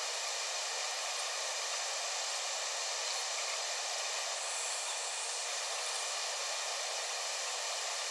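Steady hiss of air from a bench fume extractor.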